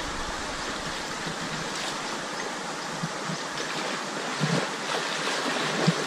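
Steady sound of creek water, with a few small splashes and thuds in the second half as a snorkeller ducks under the surface.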